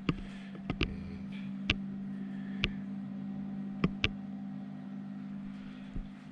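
Steady low hum of a BougeRV 30-quart compressor fridge running off an EcoFlow River Pro power station near the end of its charge, with several sharp clicks and taps in the first four seconds.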